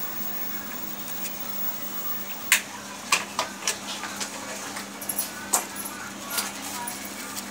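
A brush dabbing paint onto a stretched canvas, giving a run of irregular light taps and clicks that start a couple of seconds in, the sharpest one first. A steady low hum runs underneath.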